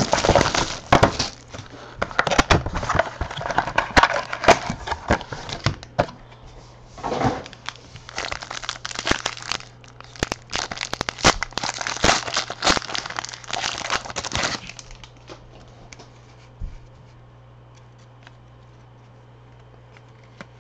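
Plastic wrapping on a box or pack of football trading cards being torn open and crumpled: a dense run of crinkling, tearing and crackling that stops about two-thirds of the way through, leaving only a faint steady hum.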